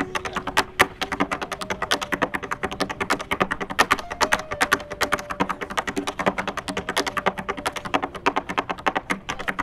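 Tap shoes striking a portable tap board in fast, rhythmic runs of taps, many a second, with sharper accented hits among them.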